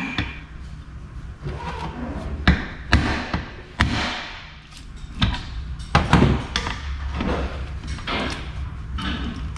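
Screwdriver prying at a silicone-sealed joint in a 241 DLD transfer case housing, giving a string of irregular sharp metal clicks and knocks as the sealant lets go.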